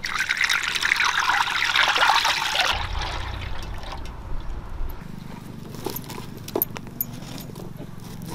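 Groundnut oil poured in a steady stream for nearly three seconds. After that comes a quieter low rumble with a few light knocks.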